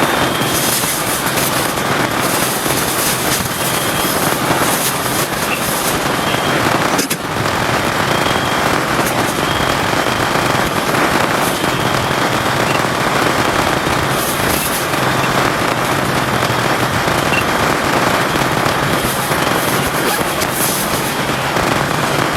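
Heavy rain falling steadily, a loud dense crackling hiss of countless drops.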